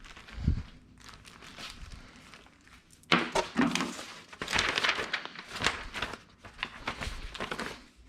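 A soft thump, then from about three seconds in, packaging crinkling and rustling with many small crackles as it is handled.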